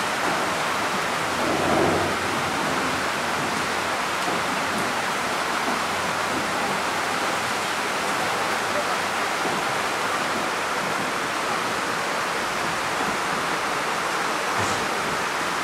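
A steady, even rushing noise with no clear rhythm or separate strikes, and a brief louder sound about two seconds in.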